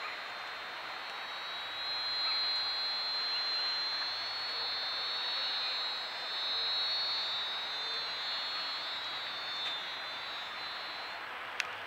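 Forest insect chorus: a steady hiss with a high, even insect buzz that grows louder about two seconds in and stops near the end. A single sharp click comes just before the end.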